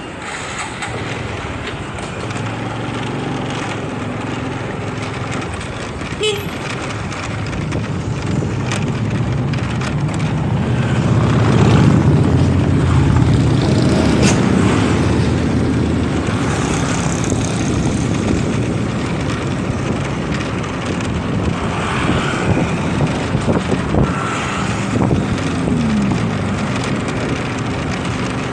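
Motorcycle riding on a road: engine running steadily under a haze of wind noise on the microphone, growing louder toward the middle, with the engine note falling briefly near the end.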